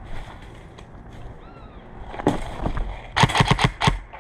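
Airsoft gun firing: a single shot about two seconds in, then a quick run of about five shots a second later.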